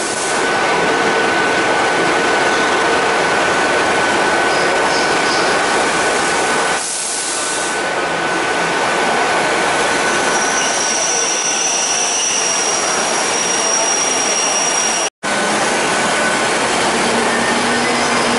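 GWR diesel multiple units and bi-mode trains running past at a station platform: a loud steady rumble and hiss, with a thin steady whine through the first half and higher squealing tones around ten to twelve seconds in. The sound drops out sharply for a moment about fifteen seconds in.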